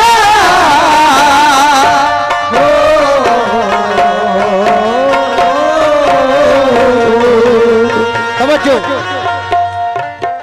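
Qawwali music: a wordless, sliding sung melody with vibrato over a held harmonium drone, with tabla strokes coming in near the end.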